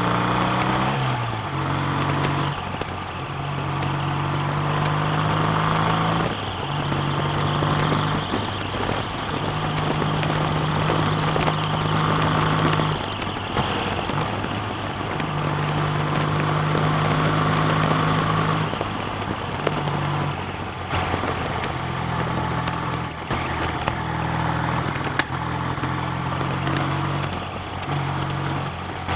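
BSA A65's 650 cc parallel-twin engine running under way with wind rush. Its steady note cuts out briefly again and again, the sign of a worsening misfire from a failing electronic ignition.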